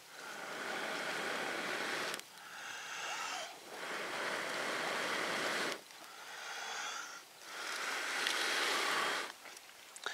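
A person blowing on glowing embers under a pile of dry leaves to coax a fire alight: long rushing breaths one after another, each one to two seconds long.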